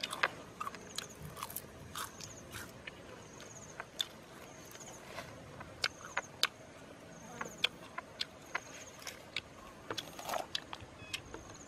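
Irregular small clicks, taps and rustles, close by, from hands tearing roasted meat and picking at leaves. Behind them a short high chirp repeats about once a second.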